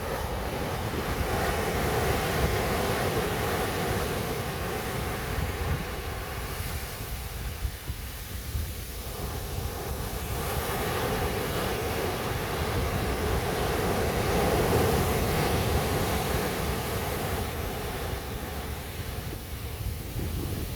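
Sea waves washing onto a beach, the surf swelling and easing twice in slow surges, with wind rumbling on the microphone.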